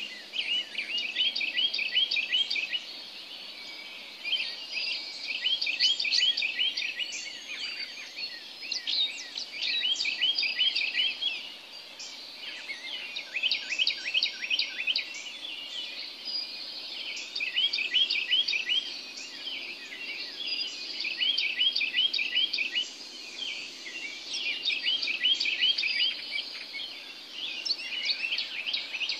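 Songbirds in a dawn chorus: one bird repeats a short, fast phrase of quick high notes about every four seconds, over thinner chirping from other birds.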